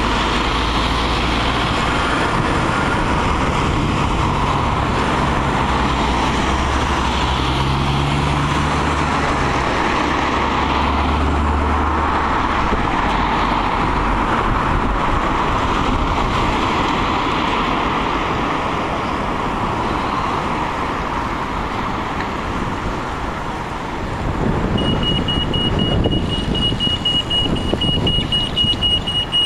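Road traffic on a busy street: cars and other vehicles running and passing close by. About 25 seconds in, a steady high-pitched pulsing beep starts and carries on, typical of a pedestrian crossing signalling that it is safe to cross.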